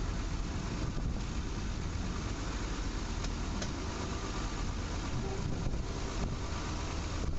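Diesel engine of a slow single-carriage regional railcar running steadily, a low drone under even running noise from the moving train.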